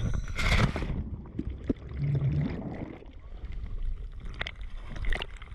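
Sea water sloshing and gurgling around an action camera in its underwater housing at the surface, muffled and uneven, with a louder rush of water about half a second in.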